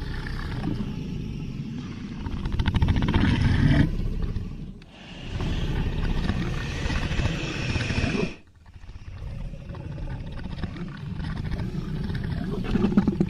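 Dragon sound effect: three long, deep, rasping growls separated by brief pauses. The first is the loudest.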